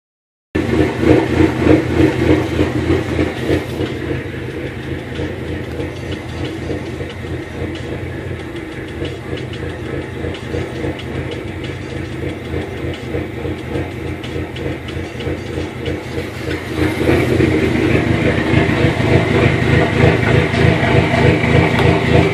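2005 Dodge SRT-4's turbocharged 2.4-litre four-cylinder engine idling roughly with an uneven, pulsing beat. It gets quieter about a fifth of the way in and louder again about three-quarters through. The rough, lean idle is the fault that a failing upstream oxygen sensor caused.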